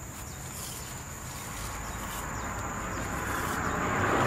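A vehicle approaching on the road, its noise swelling over the last second or so, over a steady high insect drone.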